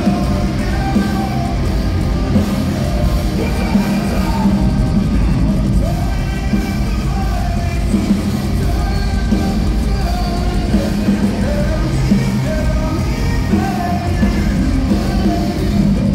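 Heavy metal band playing live through the PA, with a singer's vocal line over electric guitars and drums, heard from the crowd.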